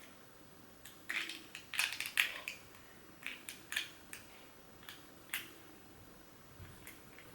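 Close-miked eating sounds: a quick run of crunchy bites and chews about a second in, then a few single crackly chews spread through the rest.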